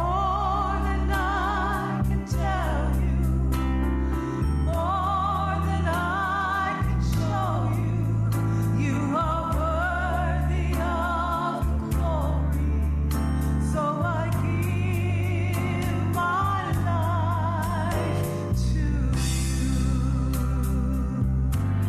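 Gospel song: a solo singer with heavy vibrato over sustained keyboard chords and bass.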